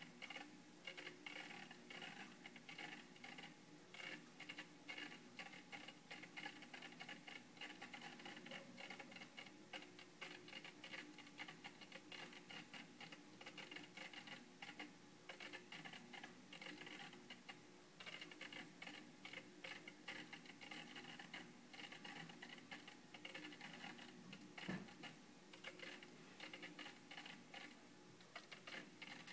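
Near silence: faint, irregular ticking and pattering over a low steady hum.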